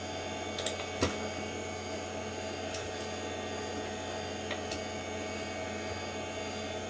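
Steady electrical hum and fan noise from a running Power Macintosh 7500 and its CRT monitor, with a few light clicks of the mouse as installer menus are picked.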